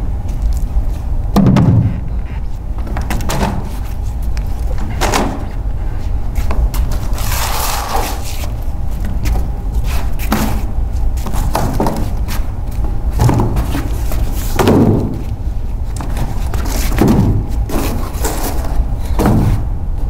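Cardboard boxes being handled and set down on a stage floor: irregular thuds every second or two, with a longer scraping slide about seven seconds in, over a steady low hum.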